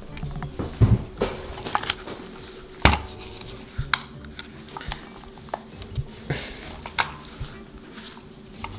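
Scissors snipping and clicking irregularly as they cut into a Furby toy's fur and plastic body, with a faint steady hum underneath.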